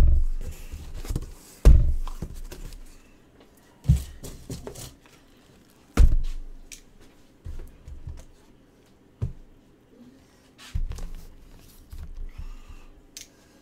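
Sealed boxes of trading cards being set down and stacked on a tabletop: a series of dull thumps every second or two, the loudest near the start and about two and six seconds in.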